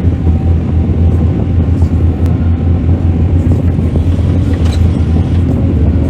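Excavator diesel engine running steadily under work, a loud, even low drone.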